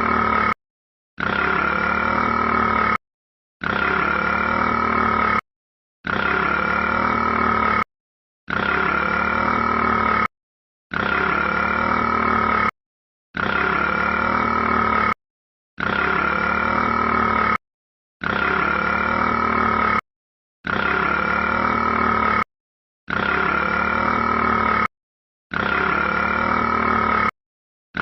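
The 'burping rat' sound clip, looped: one long burp held at a steady pitch, cut off by a short silence and repeated identically about every two and a half seconds.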